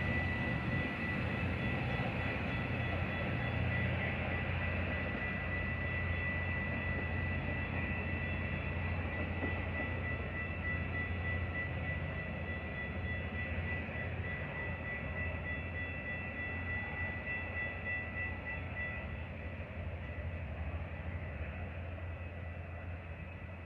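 Metra diesel commuter train pulling away, its rumble slowly fading as it recedes down the line. A steady high whine runs with it and dies out about three-quarters of the way through.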